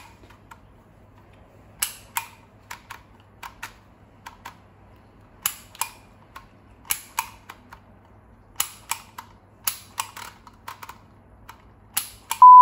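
Dymo Organizer Xpress handheld embossing label maker clicking as its letter wheel is turned and its grip squeezed to press letters into the tape: light clicks with a sharper pair of clicks every second or two, about six times. A loud steady beep starts right at the end.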